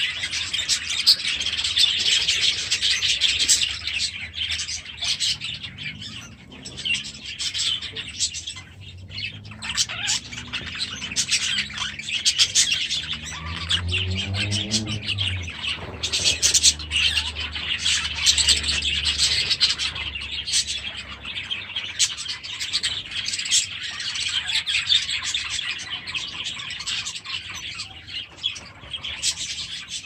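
A flock of budgerigars chattering and chirping all at once, a dense, continuous warble of many overlapping calls. A fainter low drone rises in pitch partway through.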